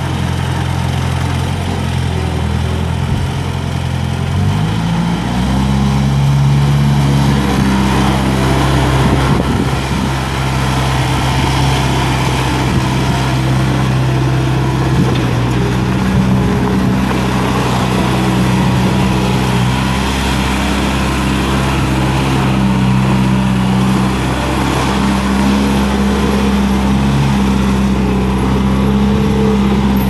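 1991 Bobcat 743B skid steer's four-cylinder diesel engine running as the machine drives around. The engine note rises about four seconds in, then holds steady with small dips in speed.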